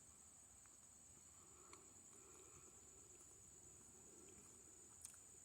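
Faint, steady high-pitched trilling of insects in the background, with a couple of faint clicks, one about a second and a half in and one near the end.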